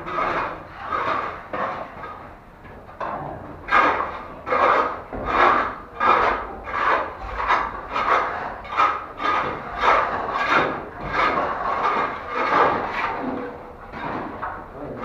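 A hand tool scraping and rubbing wet plaster in repeated rasping strokes, about one every 0.7 seconds, as ceiling cornice moulding is shaped; the strokes pause briefly about two seconds in.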